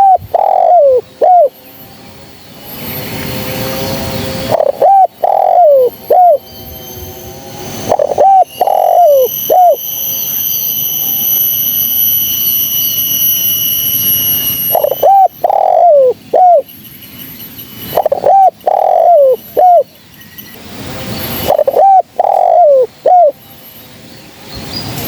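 Spotted dove (terkukur) cooing: six phrases of three quick, descending coos, repeated every three to four seconds, with a longer pause in the middle. A steady high-pitched tone sounds for about four seconds during that pause.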